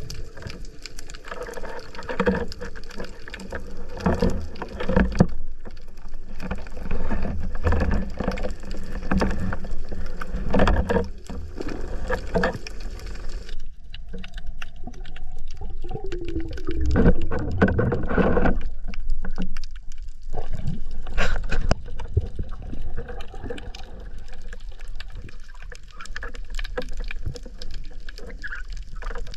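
Underwater water noise heard through a diving camera's housing as a freediver swims: steady water rushing and gurgling, with many small knocks and clicks and a few deeper gurgles around the middle.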